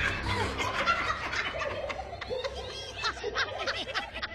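Hyena characters' cackling laughter in an animated film: a long run of short, choppy laughs that fades a little toward the end.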